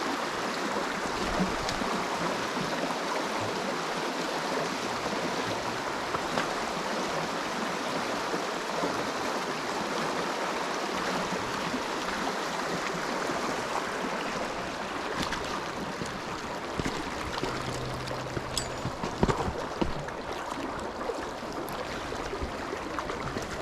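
Trout stream flowing: a steady rush of moving water, with a few faint knocks in the second half.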